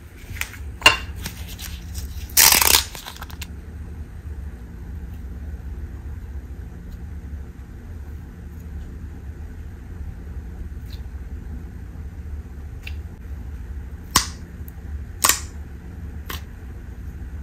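Clear blue slime being handled in a plastic packet and a clear plastic tub: a few clicks and a loud crinkling rustle of the packet about two and a half seconds in, then small sticky clicks and two sharp pops near the end as fingers press into the slime. A steady low hum runs underneath.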